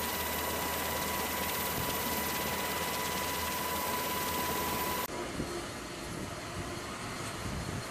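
Loud, steady helicopter cabin noise: rotor and engine rush with a high, steady whine. About five seconds in it cuts off suddenly to a quieter, steady rushing noise.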